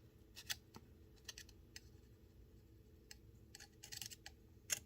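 Faint, scattered small clicks and ticks from the parts of a Spyderco Para Military 2 folding knife being handled, with a quicker cluster of louder clicks near the end.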